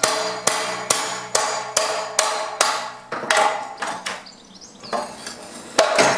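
Hammer striking a metal bar held against concrete: ringing metal blows at a steady pace of about two a second for some three seconds, then a lull with a lighter knock or two, and one more hard blow near the end.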